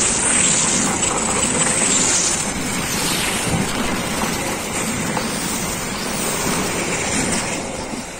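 Passenger coaches of the Lodaya express passing close by at speed: a steady rush of wheels on the rails, with a few high squeals falling in pitch in the first few seconds. The noise fades near the end as the last coach goes by.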